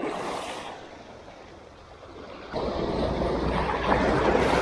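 Small waves washing over a rocky, pebbly shoreline. About two and a half seconds in, wind rumbling on the microphone joins in and the whole sound grows louder.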